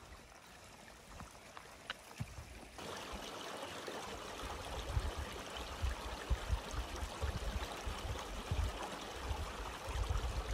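Small mountain stream trickling and gurgling over flat rock slabs, coming in fully about three seconds in, with irregular low rumbles underneath.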